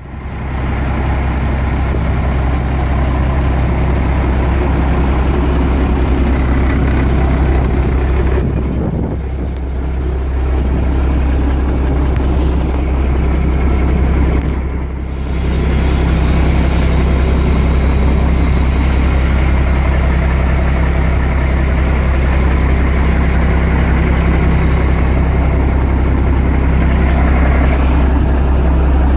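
DAF 95.380 ATI truck's six-cylinder turbo-diesel idling steadily, dipping briefly in level twice.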